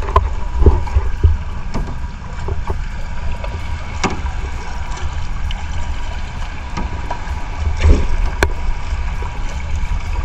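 Small paddled clear-hulled kayak on calm water: wind rumbling on the microphone over a steady wash of water, with a few short sharp knocks and splashes from the paddle and hull.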